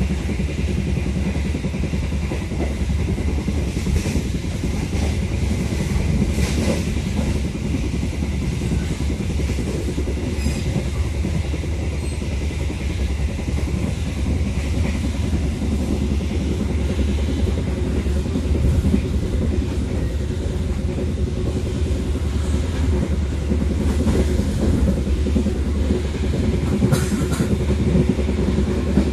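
Steady running rumble of a locomotive-hauled passenger train, heard from inside the coach: the carriage's wheels rolling on the rails, with a few faint clicks.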